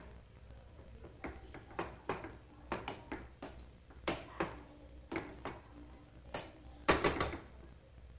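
Steel ladle stirring a watery rice, dal and vegetable mix in a stainless steel pressure cooker: irregular light scrapes and clinks against the pot, with a louder cluster about seven seconds in.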